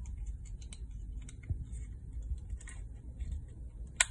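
Small plastic clicks and taps from handling the battery box of a wireless car-door welcome-light projector, with one sharp snap near the end as its battery cover is closed.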